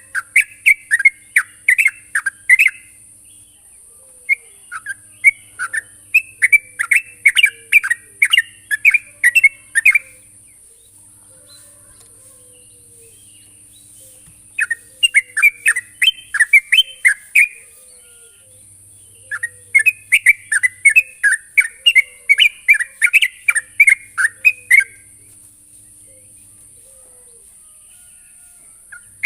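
Yellow-vented bulbul singing in bursts of rapid, bubbling chirped notes, about four phrases of two to five seconds each with pauses of a few seconds between them.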